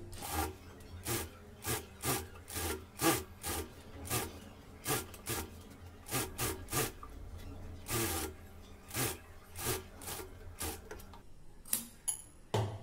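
Industrial sewing machine stitching slowly, each stitch a sharp clack at about three a second over the steady hum of its motor. The stitching stops about eleven seconds in, followed by a couple of separate knocks.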